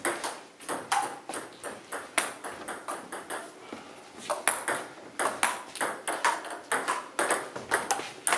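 Table tennis balls clicking off bats and tables in quick, irregular pocks, several a second, from rallies in play in the hall.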